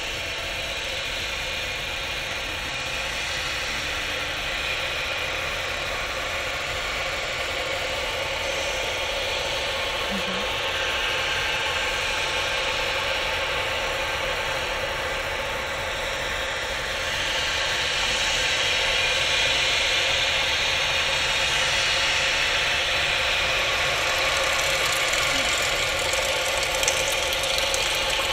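Live electro-acoustic improvised drone: a dense, steady layer of many held tones over hiss, with a fine grainy flutter underneath, swelling louder about two-thirds of the way through.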